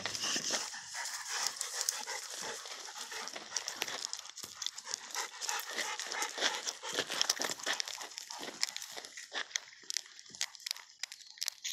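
Dogue de Bordeaux mastiffs panting close by, with irregular crunching steps on a gravel track.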